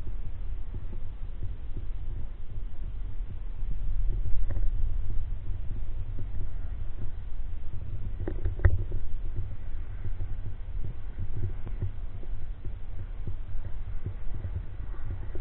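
Low, uneven rumble of handling noise on a handheld recording device's microphone, with a short cluster of clicks and a knock a little past halfway.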